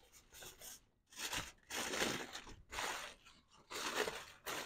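Aluminium foil crinkling in irregular bursts as gloved hands fold and press it tightly around a smoked brisket to wrap it.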